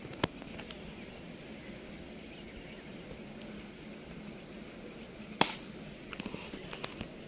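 Open-air background with a few faint clicks, and one sharp crack about five and a half seconds in: a cricket bat striking the ball.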